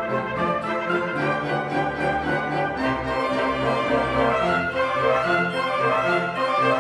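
A small orchestra of violins, cello, double bass, trumpet and trombone playing a classical piece together.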